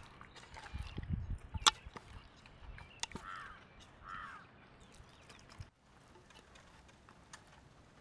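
Hands squelching whole quail around in a thick wet marinade in an aluminium pot, with one sharp click a little under two seconds in. Two short faint calls follow a few seconds in.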